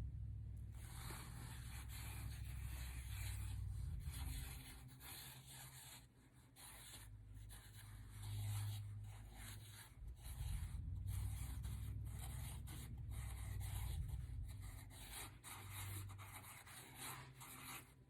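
Sharpie marker's felt tip rubbing across paper in a run of quick drawing strokes, with short pauses between them, over a low rumble.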